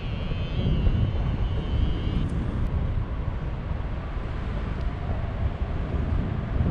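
Wind rushing over the microphone of a paraglider pilot's camera in flight: a steady low rumble. A faint warbling high tone sounds over it for the first two seconds.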